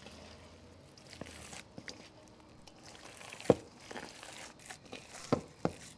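Gloved hands kneading and squishing a raw ground-meat meatloaf mixture in a stainless steel bowl: soft, wet squelches and crackles, with a sharper squelch about three and a half seconds in and two more near the end.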